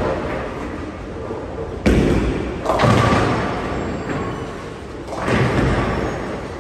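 Bowling alley sounds: a heavy thud about two seconds in, then a crash of pins with a ringing clatter that trails off in a long rumble, and another crash swelling near the end, all echoing in a large hall.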